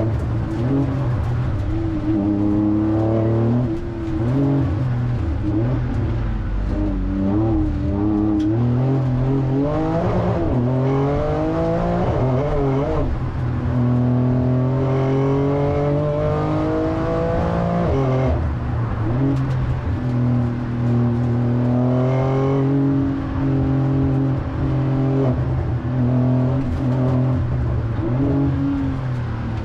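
2022 Porsche 911 Turbo S's twin-turbo flat-six heard from inside the cabin under hard acceleration, its pitch climbing through each gear and dropping back at the upshift several times, between stretches of steadier running.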